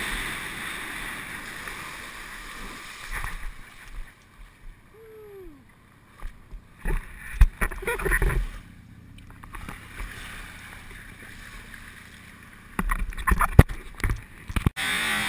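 Wind and water rushing over a helmet-mounted action camera on a water skier, broken by loud irregular bumps and splashes around the middle. Near the end, sharp knocks and rubbing as fingers handle the camera.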